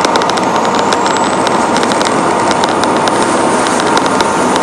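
Cab noise of a Western Star quad-axle tipper truck on the move: a steady engine and road drone with frequent short clicks or rattles, and a thin high whine that rises over the first couple of seconds and then holds.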